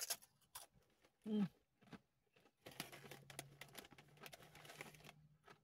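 Faint crunching of a Doritos chip being chewed, with a brief voiced sound about a second in, then a Doritos chip bag crinkling in the hands for a couple of seconds.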